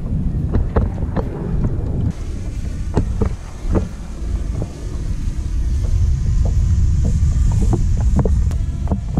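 Wind buffeting the microphone on a kayak out on the water, a loud low rumble, with scattered sharp knocks and taps throughout.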